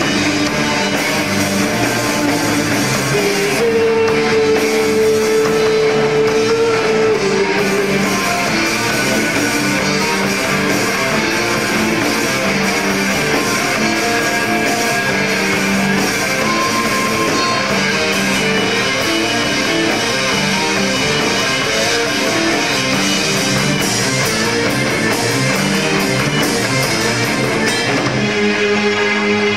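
Live metal band playing a song: guitar and drums with keyboard over them. One lead note is held for a few seconds about four seconds in.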